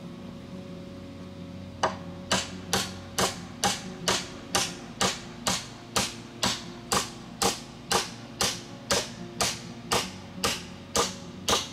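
Hammer driving nails into a wooden frame: a steady run of sharp blows, about two a second, starting about two seconds in.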